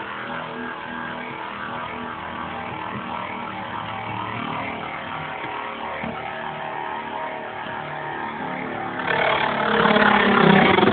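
Two spinning Beyblade metal tops, Tornado Ldrago and Tornado Leone, giving a steady whirring hum of several tones. Near the end the sound grows louder and rougher as the tops clash and scrape together.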